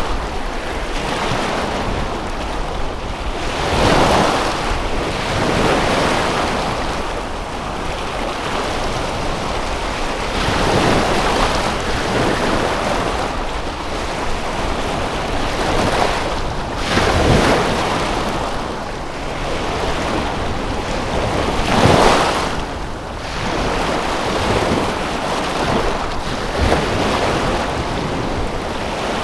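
Lake waves washing onto the shore, the rush of water swelling and falling every few seconds, with wind.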